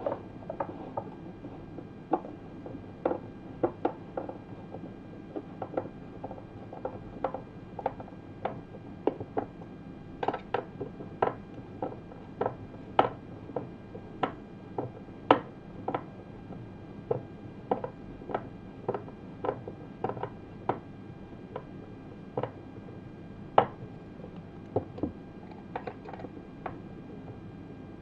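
A T-handle hex key being turned in a small socket-head screw to tighten it: irregular light metallic clicks and taps, about one or two a second, as the key is twisted and re-gripped.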